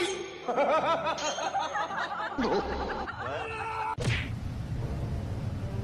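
Snickering, giggling laughter in quick, wobbling high-pitched bursts for about four seconds. It cuts off abruptly with a sharp click, and a steady low hum with faint steady tones follows.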